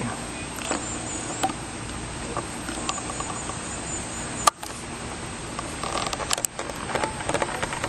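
Steady background noise with faint high chirps and a single sharp click about four and a half seconds in.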